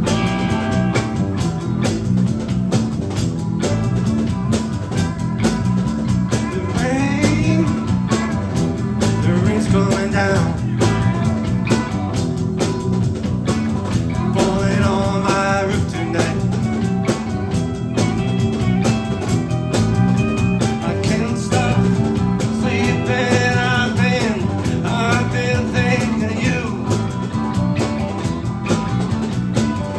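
Blues-rock band playing an instrumental break: a lead guitar solo with bent notes over bass and drums.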